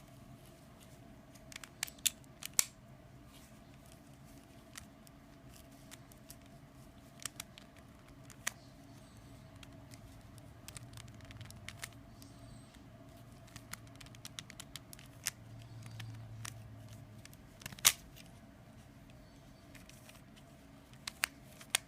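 Plastic concave puzzle cube being twisted by hand: scattered sharp clicks and clacks as its layers snap round, the loudest a few near the start and one at about 18 s, over a faint steady hum.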